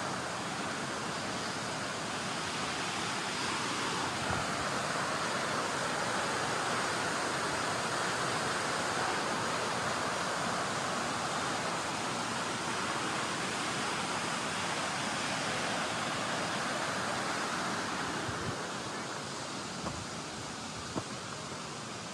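Steady rush of running water, easing a little near the end, with a couple of faint knocks.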